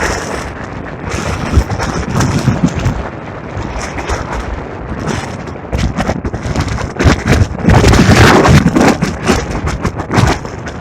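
Strong gusting wind buffeting the microphone with uneven rumbling thumps and crackles, loudest from about seven to nine seconds in.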